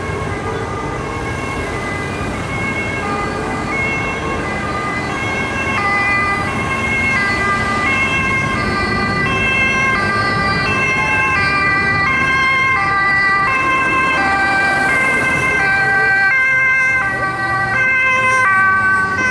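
Ambulance two-tone siren alternating between a high and a low note about twice a second, growing louder over the first several seconds, over the noise of passing road traffic.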